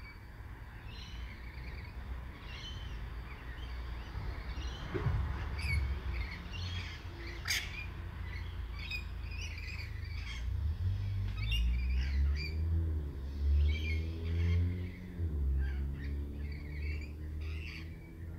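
Birds calling in many short chirps, with one sharp louder call about seven and a half seconds in, over a low rumble. From about eleven to sixteen seconds a low hum slides up and down beneath them.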